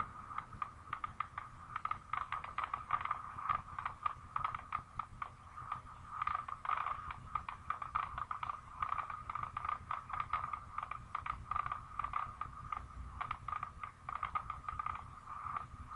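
Fireworks going off in rapid, irregular succession, a dense run of bangs and crackles, heard played back through a camera's small speaker, so the sound is thin and sits in a narrow midrange.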